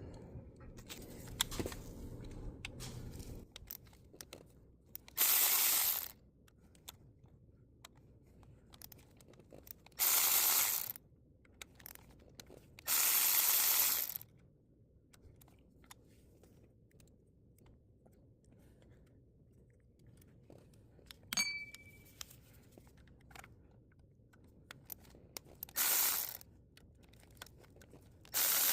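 A power driver spinning Torx T30 bolts out of the ignition coils in short bursts of about a second each, five times, with a single metallic clink a little past the middle.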